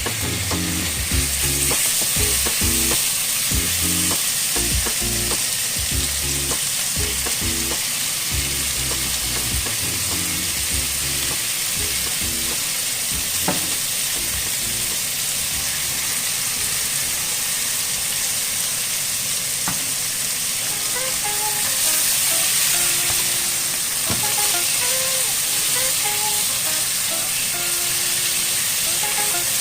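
Food sizzling steadily in hot oil in a pan while it is stirred, with low knocks from the stirring in the first dozen seconds. The sizzle grows a little louder about two thirds of the way through.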